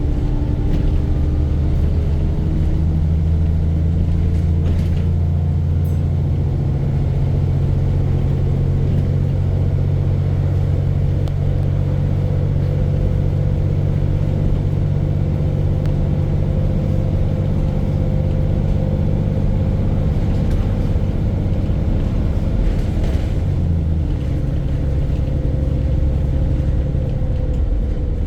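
VDL single-deck bus's diesel engine running steadily, a loud low drone that shifts in pitch just after the start and again near the end; the engine is knocking.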